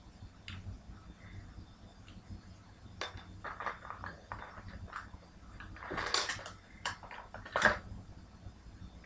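Small fingerboard trucks and parts being handled: scattered light clicks and clatters, loudest in a short noisy patch about six seconds in and a sharp click about seven and a half seconds in.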